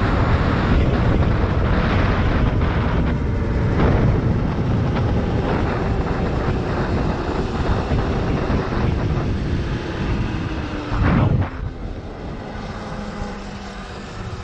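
Wind rushing over the camera microphone while riding an electric dirt bike at speed, with a faint motor whine that slowly falls in pitch. A brief loud gust comes about eleven seconds in, then the wind noise drops.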